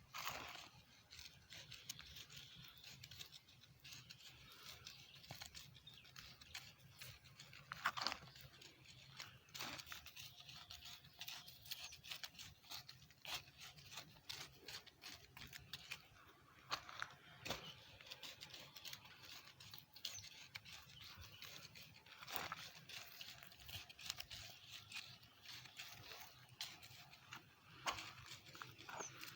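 Soil being worked to mix manure into it: faint, irregular scraping and crunching of earth, with a few sharper strokes scattered through.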